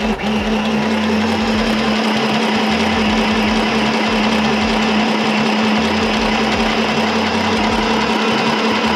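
Singer M1000 mini sewing machine running at its single fixed speed, sewing a zigzag stitch through cotton fabric: a steady, even hum that cuts off suddenly at the end.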